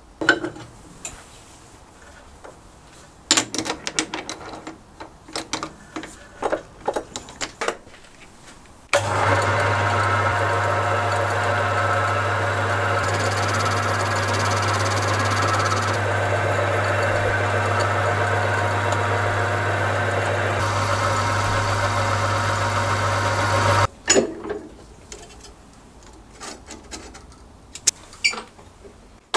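Small metal lathe, a Halifax 524 (Atlas-style clone), running steadily for about fifteen seconds with a low motor hum and belt-drive whine; it stops abruptly. Before and after, scattered metallic clicks and knocks of parts and tooling being handled.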